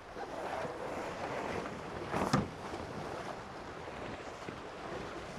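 Wind blowing on the microphone and water rushing along the hulls of a Tornado catamaran sailing fast in strong wind, with one sharp splash or slap a little over two seconds in.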